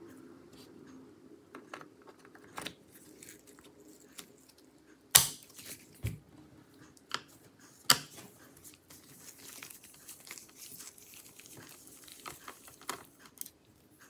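Scattered small clicks and taps of a precision screwdriver and metal laptop parts being handled, with light rustling of nitrile gloves. A sharp click about five seconds in is the loudest, and from about eight seconds there is a stretch of soft scraping and rustling.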